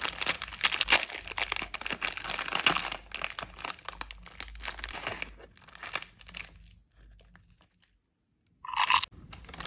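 Snack wrapper packaging crinkling and crackling as it is handled and torn open. The crackle is dense for about six seconds, then thins out and stops. A short louder sound comes near the end.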